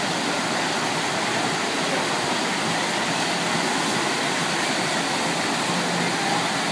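Steady rushing of a sheet of pumped water pouring over a surf-simulator wave ride.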